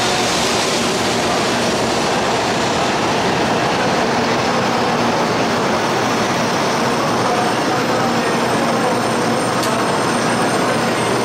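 Shinkansen bullet train moving along the station platform, a loud, steady rushing of running gear and train noise with a faint steady hum.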